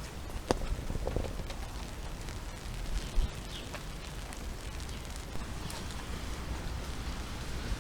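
Steady rain, a hiss of falling rain with scattered taps of single drops over a low rumble, and a dull thump about three seconds in.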